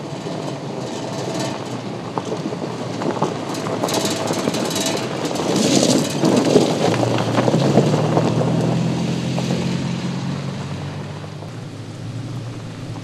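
Toyota Tacoma pickup driving past on a loose gravel track: the engine runs while the tyres crunch and scatter gravel in sharp crackles. It is loudest about six seconds in, after which a steady engine note stands out and fades.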